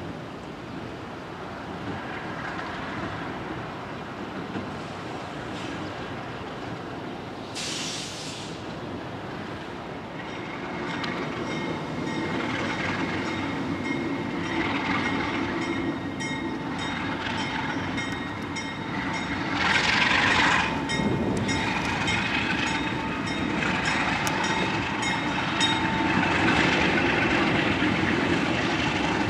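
Alco RS32 diesel locomotive's V12 engine running as it pulls a boxcar at low speed. From about ten seconds in, the wheel flanges squeal in steady tones on the tight curve. There is a brief hiss near eight seconds, and the sound grows louder near the end as the train comes closer.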